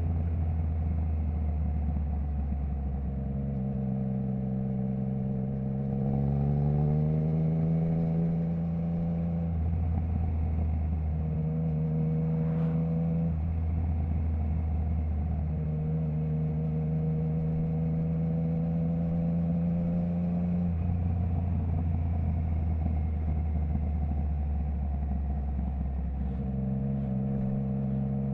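Triumph Trident 660's inline three-cylinder engine running through a baffle-less Zard stainless full exhaust while riding. The engine note holds at steady speeds, climbs once about six seconds in, and changes pitch several more times as the revs and gears change.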